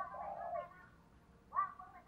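Female spotted dove cooing: one short coo at the start and another beginning about one and a half seconds in.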